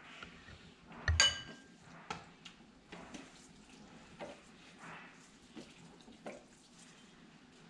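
A spoon clinks once against a ceramic dish about a second in, ringing briefly. Softer scraping and small knocks follow as a fish is handled and stuffed on a platter.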